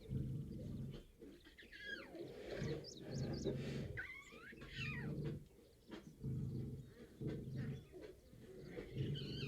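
Lion giving a slow series of low grunting calls, about one a second, with birds chirping and whistling over it.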